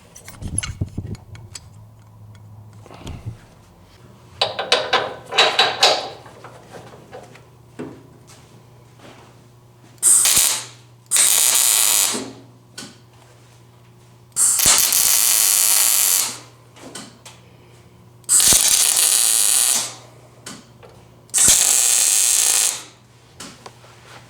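Welder laying five short tack welds on a steel door hinge, each a loud crackling burst of about a second that starts and stops sharply. A briefer noise comes about five seconds in, over a low steady hum.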